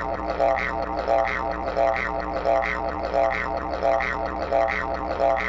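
Dance music built on a steady low drone with a regular pulse about every two-thirds of a second.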